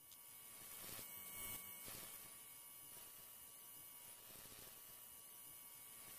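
Near silence: a faint steady hiss with a thin electrical hum under it.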